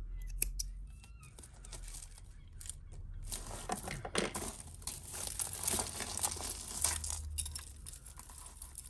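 Hands rummaging through a heap of costume jewellery: beads, chains and metal pieces rustling and clinking together, busiest from about three seconds in until past seven seconds. A few sharp small clicks near the start.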